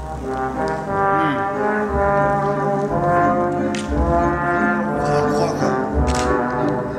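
Slow background music of long held brass-like tones in layered chords, with a low throb about every two seconds.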